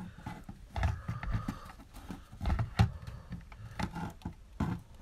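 Plastic outlet extender knocking, clicking and scraping against a wall outlet as its prongs are lined up to plug in, with low handling thumps; the sharpest click comes a little under three seconds in.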